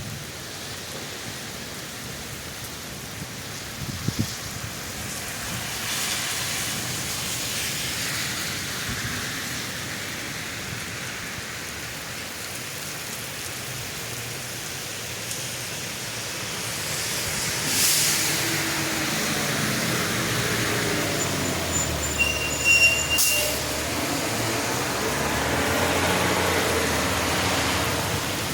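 Heavy rain falling steadily. In the second half a low engine rumble of a passing vehicle rises over the rain, with a couple of sharp clicks and a brief high squeal.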